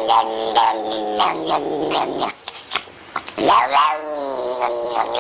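A cat yowling in long, drawn-out wails, breaking off for about a second partway through, then a louder yowl about three and a half seconds in.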